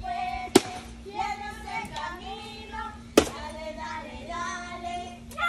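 Children's high-pitched voices carrying on throughout, with two sharp knocks about two and a half seconds apart.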